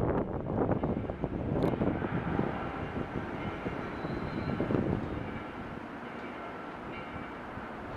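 Jet engines of an Airbus A321 on approach, a rushing roar with a faint high whine that fades over the first five seconds as the plane passes and moves away.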